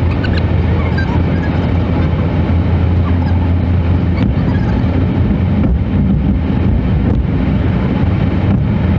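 Steady low rumble of a vehicle driving along a highway: engine and tyre road noise at a constant level.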